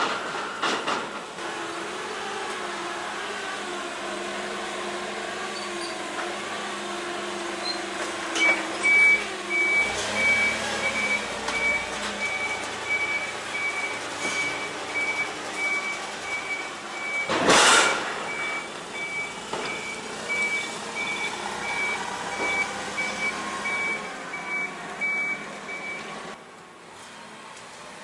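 Propane forklift running, its reverse alarm beeping steadily from about a third of the way in until shortly before the end as it backs out of the trailer. A single loud bang comes about two-thirds of the way through.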